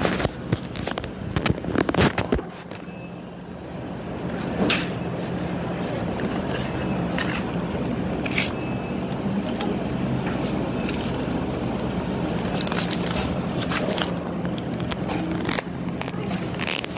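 A steady low hum, with scattered clicks, knocks and scraping; a cluster of louder knocks falls in the first two seconds.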